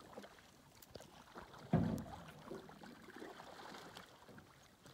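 Faint water lapping against a canoe, with small knocks and clicks and one short, louder low thump about two seconds in.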